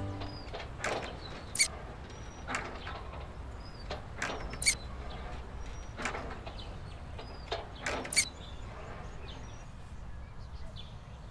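Birds chirping in short high calls over a low steady rural background rumble, with several short sharp clicks.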